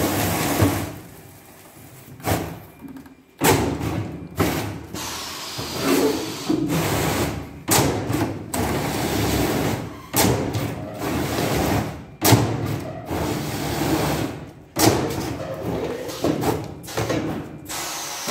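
PM-14 corrugated-board boxmaker running with a blank of corrugated cardboard feeding through its rollers to be creased and slotted: a steady machine running sound broken by repeated sharp knocks and thuds.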